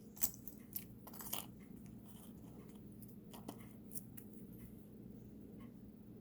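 Faint crinkling and small clicks of a small plastic packet of jewelry findings being handled, busiest in the first second and a half, then a few scattered ticks.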